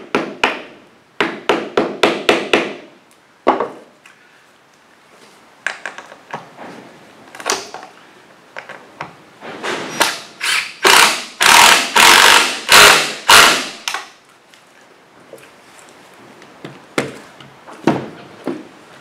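Cordless driver running in short bursts, driving screws into wooden planking, with knocks and taps of the tool and wood between. The heaviest run of bursts, about three a second, comes in the middle of the stretch.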